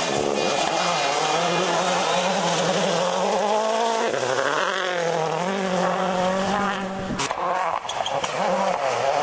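Ford Focus World Rally Car's turbocharged four-cylinder engine revving hard, its pitch rising and falling again and again with gear changes and throttle lifts as the car slides through a loose gravel hairpin. About seven seconds in a sharp click cuts it off, and another engine is heard after that.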